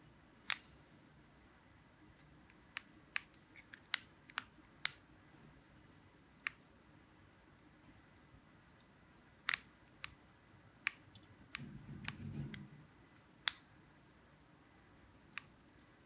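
Irregular sharp clicks of buttons being pressed on two handheld key-fob remote controls, a black four-button remote and a chrome remote duplicator, about sixteen in all, with a brief low rub of fingers handling the remotes about three-quarters of the way through.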